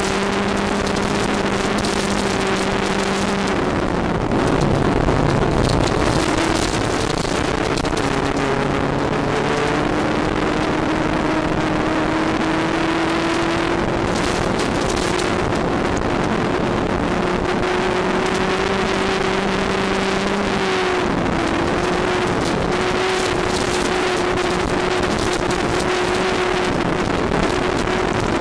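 VW Golf GTI Mk2 rally car's engine running hard, heard from inside the cabin, its note holding and slowly rising with breaks at gear changes about four seconds in and again about two-thirds of the way through. Under it, a steady hiss and clatter of tyres and stones on the gravel road.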